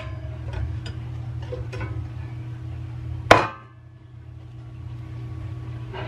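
A loaf pan being turned out onto a wire cooling rack: a few light clicks, then one sharp knock about three seconds in as the pan is rapped to release the cake, over a steady low hum.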